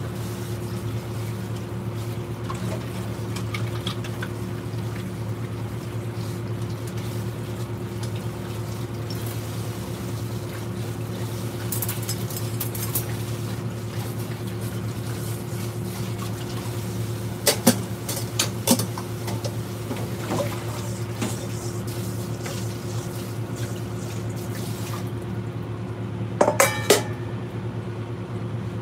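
Steady low hum and hiss from a stovetop where hamburger patties are cooking in a frying pan. A few sharp clinks of kitchenware break in, twice in the second half, the loudest a quick cluster near the end.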